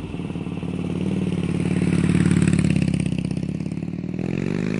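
Harley-Davidson motorcycle V-twin engine running with a pulsing exhaust beat. It swells to its loudest about two seconds in and eases off, then the pitch starts to climb near the end as it revs up.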